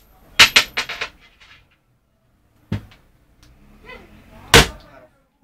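Sharp knocks or bangs: a quick run of four or five about half a second in, a single knock a little before three seconds, and one loud bang near the end.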